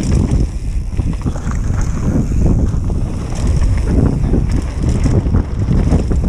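Mountain bike descending a dirt forest trail at speed: wind buffeting the camera microphone over the rumble of the tyres on the trail, with frequent short knocks and rattles from the bike over bumps.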